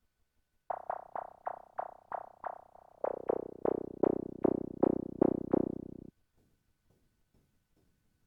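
Behringer Crave analog synthesizer playing a sequenced run of short plucky notes, about three a second, each dying away quickly. From about three seconds in the notes grow louder and deeper, with a tone sliding downward across them, and the sequence stops abruptly about six seconds in.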